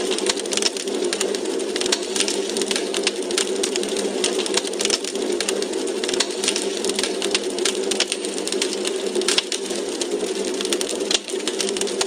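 Wood fire crackling in a fireplace: many quick, irregular pops and snaps over a steady hiss.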